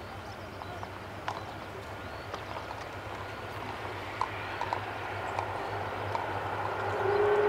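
Boeing 747-400 freighter's jet engines running at taxi power, a steady whine and rumble that grows gradually louder as the aircraft rolls onto the runway. Near the end a steady higher tone joins as the engines begin to spool up for takeoff.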